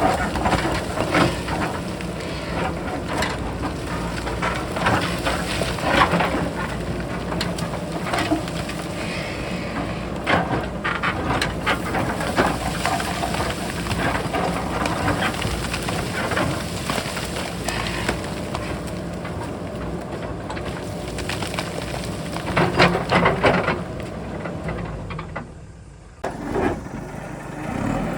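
JCB backhoe loader's diesel engine running under load, with repeated irregular clatter and knocks of rocks and stones against the steel bucket and each other. The sound drops away briefly near the end, then picks up again.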